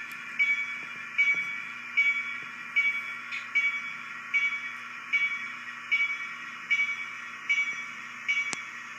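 MRC sound decoder in a Bachmann GP38-2 model diesel, playing its diesel engine sound through the small baffle speaker, with a bell ringing steadily about once every 0.8 s. A single sharp click sounds near the end.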